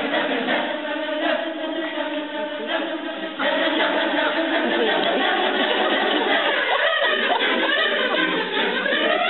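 High school choir singing in sustained chords, the recording stepping abruptly to a louder passage about three and a half seconds in.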